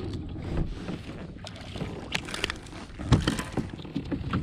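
A hooked bass is played to the side of a plastic fishing kayak and swung aboard: splashing at the surface with scattered clicks and knocks of rod, lure and hull, the loudest knock about three seconds in.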